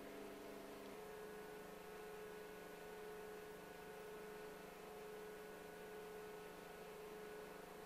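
A faint, steady hum made of several held tones over a light hiss; the tones change once about a second in, to a stronger tone around the middle, and then hold steady.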